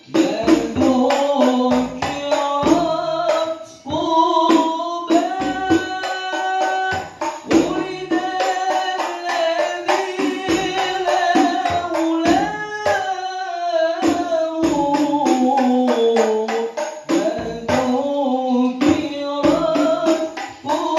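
A man singing an Islamic devotional song to hadrah percussion. Rebana frame drums, one with jingles in its rim and a larger deep-shelled drum, beat a fast, steady interlocking rhythm under the voice.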